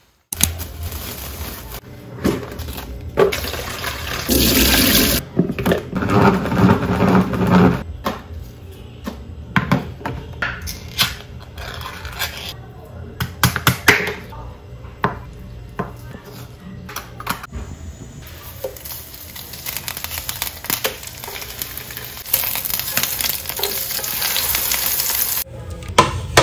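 Kitchen food-prep sounds: water running from a tap in two stretches, with scattered clinks and knocks of a tin can, knife and dishes on a wooden cutting board and counter. Background music plays underneath.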